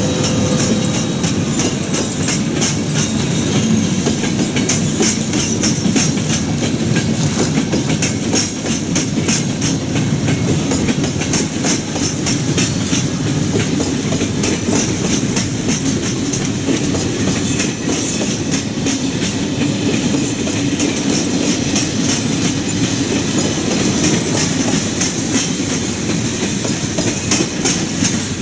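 A train rolling past on the track, its wheels clicking rapidly and steadily over rail joints and points over a continuous rumble.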